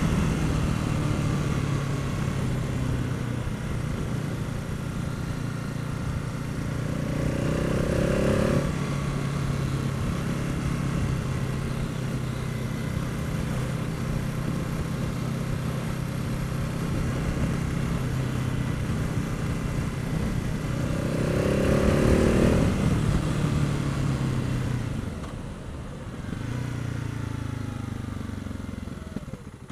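Husqvarna TR 650 Strada's single-cylinder engine running under way at a steady pace. It revs up twice, about a quarter and about three quarters of the way through, then drops off near the end as the bike slows.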